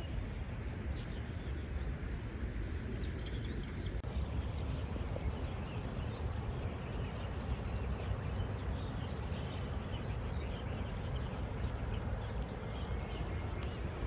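Steady low rumbling noise of outdoor water and air, with faint scattered small splashes and ticks as a hooked fish is drawn across the creek surface.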